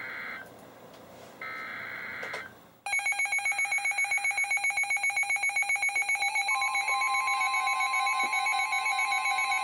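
NOAA Weather Radio SAME data bursts, two roughly one-second electronic screeches, mark the start of a new warning. About three seconds in, a weather radio's alert alarm goes off, a loud rapid beeping of about seven pulses a second. About halfway through, the steady 1050 Hz NWS warning alarm tone joins the beeping.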